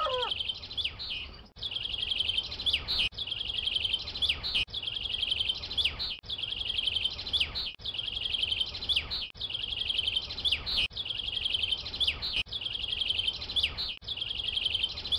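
Bird chirping: a rapid high trill with quick downward-sweeping notes. The same short phrase repeats about every second and a half.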